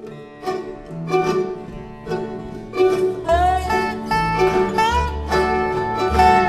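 Acoustic bluegrass band playing an instrumental intro: picked string notes at first, then sliding high melody notes and deep upright-bass notes come in about halfway.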